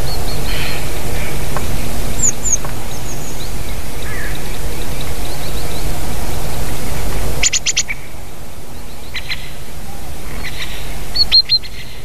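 Small songbirds calling: scattered short, high-pitched chirps and call notes, with a quick run of four sharp notes about halfway and a few more near the end. Under them is a steady low rumble that drops away about halfway.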